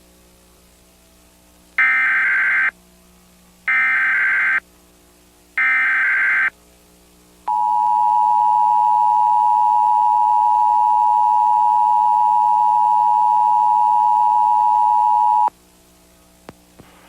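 Emergency Alert System broadcast tones: three short bursts of warbling SAME header data, each about a second long and evenly spaced, then the steady two-tone EAS attention signal held for about eight seconds before cutting off abruptly.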